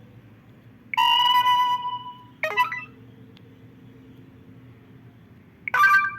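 A preloaded ringtone playing from a Samsung GT-I5500L phone's small loudspeaker: a held note about a second long starting about a second in, a quick cluster of notes, then after a pause another short phrase near the end.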